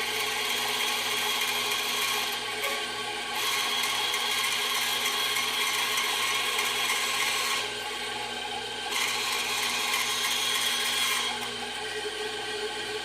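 Micro-Mark bench band saw running while its blade cuts through a thin sheet-metal jewellery blank, a steady rasping cut in three long stretches with two brief pauses where only the saw runs.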